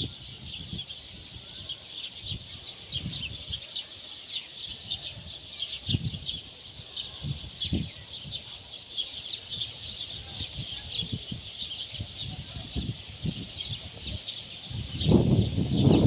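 Many small birds chirping and twittering in a dense, continuous chorus of quick high chirps. Scattered low thumps sound under it, and a louder low rumble builds near the end.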